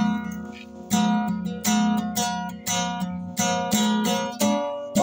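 Small acoustic guitar strummed in a steady rhythm of chords, one strum after another with the notes ringing on between them.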